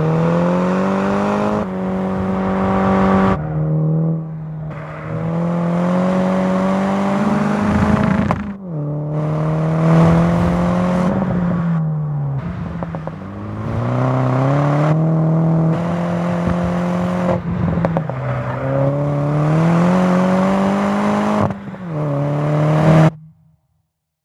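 Mini John Cooper Works' turbocharged four-cylinder engine accelerating through the gears: the engine note climbs and then drops sharply at each gear change, many times over, then cuts off suddenly near the end.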